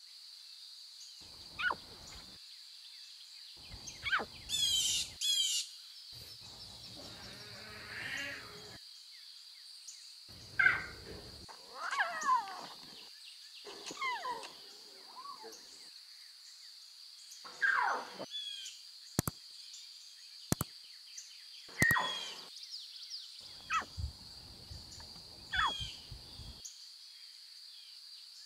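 Wild savanna ambience: a steady high-pitched insect drone, with bird calls and chirps every few seconds, several of them sweeping downward in pitch. Two sharp clicks come in the second half.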